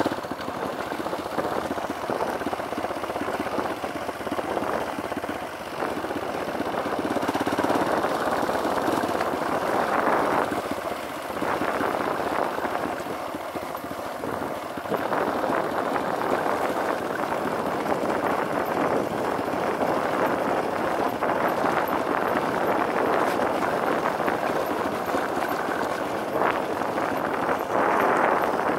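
Dirt bike engine running as the motorcycle rides along a dirt road, swelling and dipping in level as the ride goes on.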